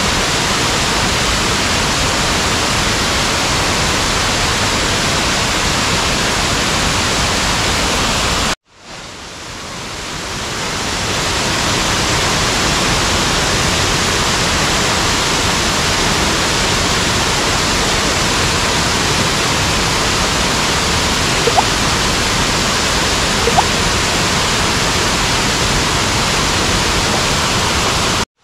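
Waterfall pouring: a loud, steady rush of falling water. It breaks off suddenly about a third of the way through and fades back in over a couple of seconds.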